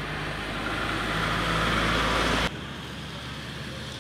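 Road traffic: a passing car's tyres and engine, growing louder, then cut off suddenly a little past halfway, leaving quieter steady traffic noise.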